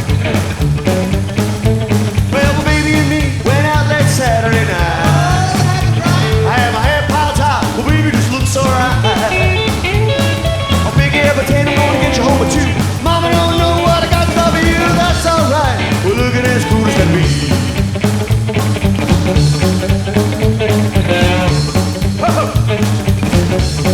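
A rock and roll band playing, with electric guitar, bass and drums keeping a steady beat, and a singing voice at times.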